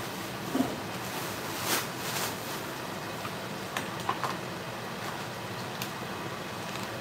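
Ground beef and sliced sausage sizzling steadily in a skillet. There are a few light clicks and knocks, and a short swish about two seconds in.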